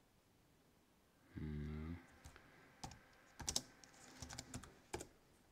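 Computer keyboard: a handful of separate keystrokes in the second half, typing short terminal commands. Before them comes a short low hum lasting under a second.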